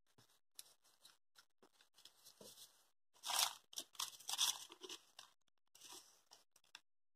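Faint crinkling and rustling of plastic food gloves and banana leaves as hands press glutinous rice down into a leaf-lined mould. It starts as scattered small crackles, gets denser and loudest around the middle, then thins out.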